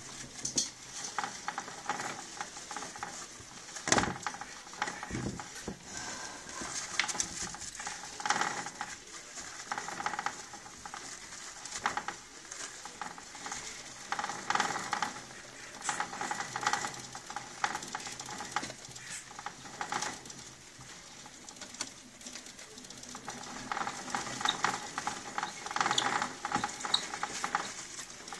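Djungarian hamsters scrabbling in wood-shavings bedding and climbing in a plastic running wheel: irregular scratchy rustling with many light clicks, coming and going in bursts.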